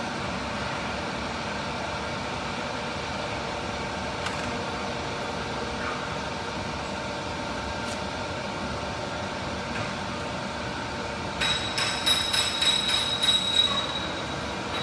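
CNC router's axis drive motors running with a steady whine as the machine homes its axes. Past the three-quarter mark comes a burst of rapid metallic clicking with a high tone, lasting a couple of seconds.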